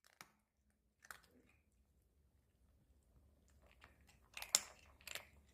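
Chewing crunchy food, with separate sharp crunches a second or more apart, the loudest coming in a quick run a little after the middle.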